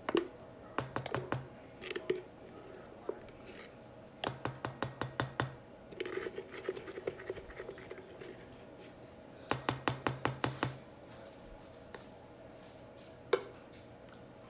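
Nearly empty plastic Burman's mayonnaise bottle being shaken upside down and squeezed over a mixing bowl to get the last of the mayonnaise out: three bursts of rapid knocking, about five a second, with scratchy squeezing sounds between them.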